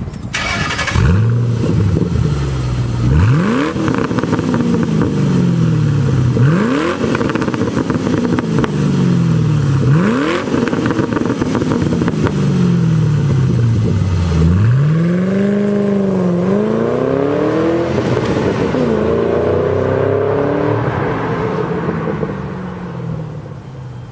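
Mustang GT 4.6L V8 through a Magnaflow Competition Series stainless axle-back exhaust, revved several times. Each quick blip climbs sharply and settles slowly back toward idle; in the second half the revs run longer and higher.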